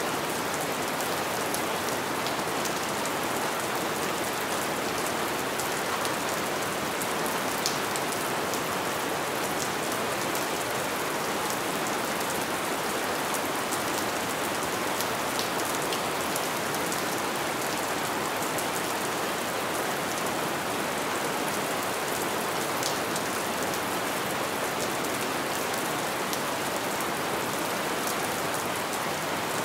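Light rain falling steadily, an even hiss with scattered individual drops ticking through it.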